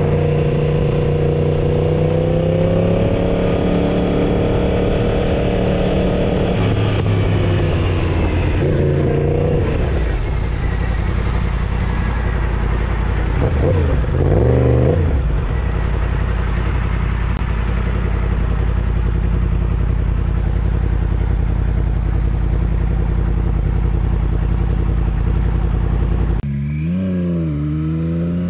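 Motorcycle engine heard from the rider's own bike, running and revving in traffic, its note rising and falling with the throttle. About halfway through there is a quick run of revs up and down. Near the end the sound drops briefly, then the engine climbs in pitch in several rising sweeps as it accelerates.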